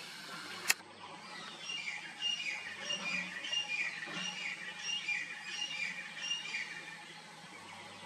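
A parrot giving a rapid run of short harsh squawks, about two a second, for some five seconds, each call dropping slightly in pitch. A single sharp click comes just before, under a second in.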